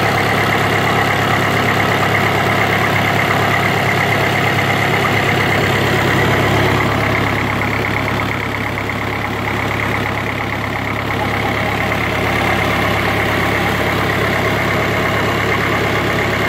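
Rebuilt Toyota S4S four-cylinder engine running steadily at idle, dipping a little in level for a few seconds midway.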